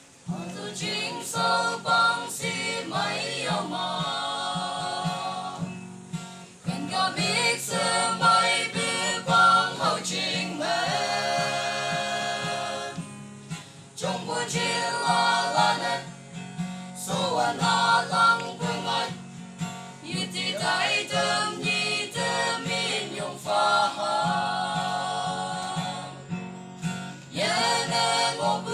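A small mixed group of young male and female voices singing a song together, accompanied by a strummed acoustic guitar, with brief breaks between phrases.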